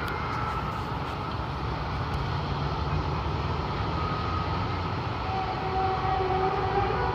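Steady low rumble with long, drawn-out tones that wander slowly in pitch, drifting lower near the end: the kind of droning, trumpet-like noise recorded as a mysterious sound in the sky.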